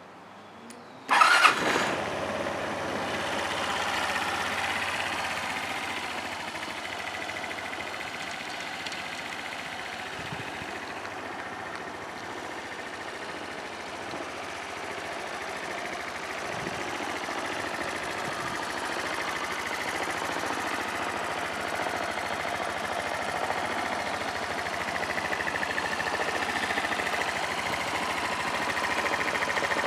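2010 Suzuki Address V125S scooter's 124 cc four-stroke single-cylinder engine starting with a brief loud burst about a second in, then idling steadily, a little louder toward the end; the engine is in good running condition.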